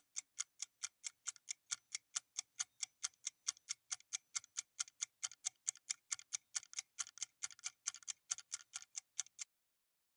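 Quiz countdown-timer sound effect: even, quick clock ticks, about four to five a second, stopping shortly before the end as the timer runs out.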